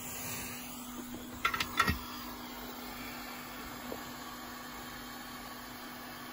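Quick 861DW hot air rework station blowing steadily at 120 airflow: an even rushing of air with a steady low hum. Two short sharp sounds come close together about a second and a half in.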